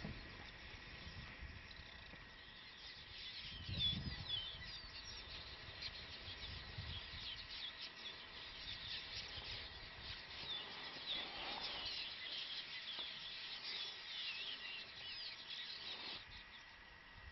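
Small birds chirping and twittering in a busy chorus of short rising and falling calls, over a steady high thin tone. A low rumble swells briefly about four seconds in.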